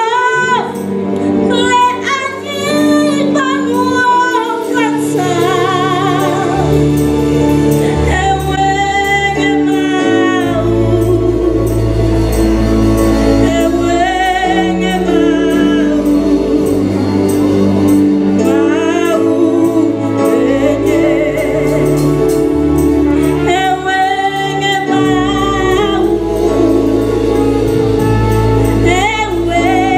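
A woman sings a slow worship song into a handheld microphone, with a wavering vibrato on her long held notes, over sustained backing chords and a bass line that changes note every few seconds.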